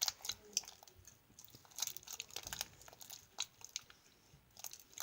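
Homemade butter slime being kneaded by hand with lotion worked in: faint, irregular sticky crackles and clicks.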